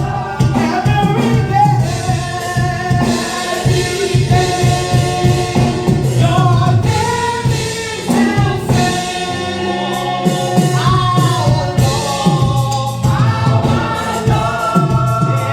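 Gospel worship song: a group of singers with instrumental backing and a steady beat.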